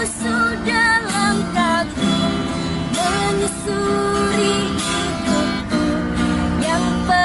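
Acoustic guitar strumming chords with a sliding, bending melody line over it: an instrumental passage of a busker's pop ballad, with no singing words.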